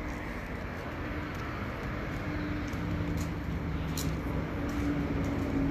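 Steady outdoor background rumble and hiss, with a faint low hum that grows from about two seconds in and a single click about four seconds in.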